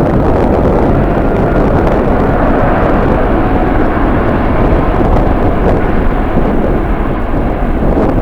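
Jet airliner engine noise mixed with strong wind buffeting the microphone: a loud, steady rush with no breaks.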